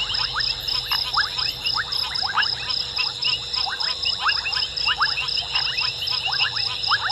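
Night chorus of frogs: many short rising calls overlapping one another, over a steady, high, pulsing trill.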